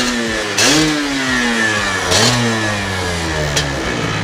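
Yamaha F1ZR two-stroke single-cylinder engine revved through a gutted stock exhaust: a quick throttle blip at the start, another about half a second later and a third about two seconds in, the revs sinking slowly back toward idle after each.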